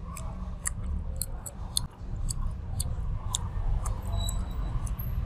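Close-up sounds of someone chewing grilled sausage: irregular wet mouth clicks and smacks, over a steady low hum.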